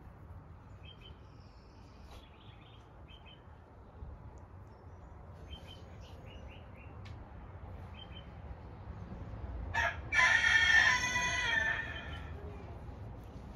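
Faint, short bird chirps recur over a low background, and about ten seconds in a loud, drawn-out bird call of wavering pitch rises over them and lasts about two and a half seconds.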